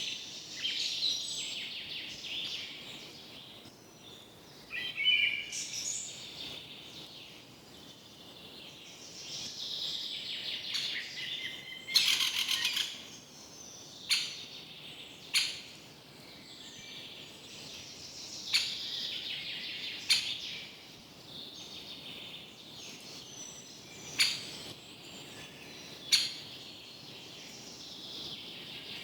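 Several birds calling and singing in a forest, with overlapping trills and chirps and a few sharp, brief loud calls scattered through.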